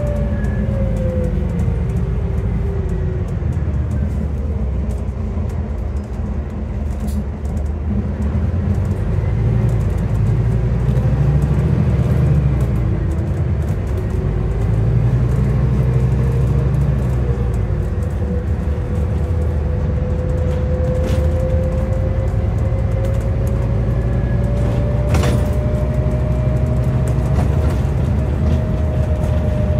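Inside a moving Scania N250UD double-decker bus: the Scania DC09 five-cylinder diesel rumbles under load while the ZF Ecolife six-speed automatic gearbox whines. The whine falls in pitch over the first few seconds as the bus slows, then climbs slowly for most of the rest as the bus picks up speed. A few brief clicks are heard along the way.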